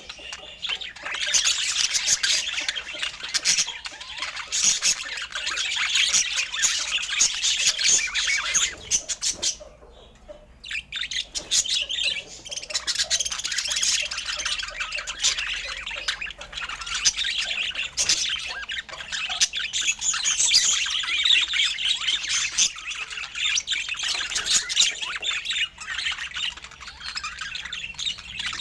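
Several budgerigars chattering, warbling and squawking without a break, with a short lull about ten seconds in.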